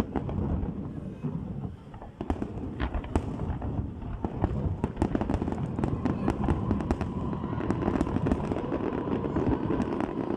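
Fireworks going off: a continuous low rumble of bangs with many sharp cracks and pops, growing denser from about four seconds in.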